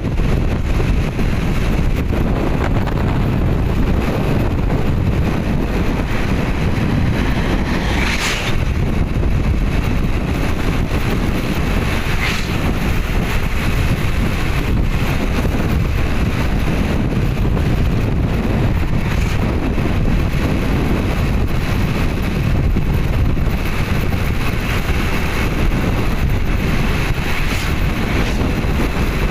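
Steady wind buffeting the microphone: a loud, even rumble strongest at the low end, with no clear engine note.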